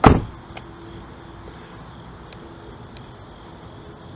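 Nissan Murano's door shut once: a single solid thump right at the start. After it, a steady, faint, high chirring of insects.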